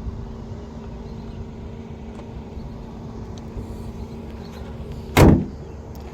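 A single loud thump about five seconds in, over a steady low hum.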